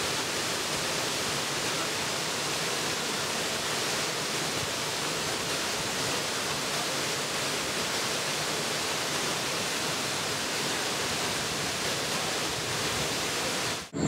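Waterfall: a steady, even rush of falling water over rocks.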